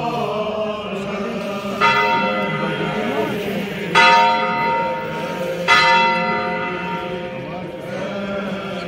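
A church bell tolled for a funeral: three slow strikes, the first about two seconds in and the others about two seconds apart, each ringing on and fading. Underneath is the steady murmur of a crowd's voices.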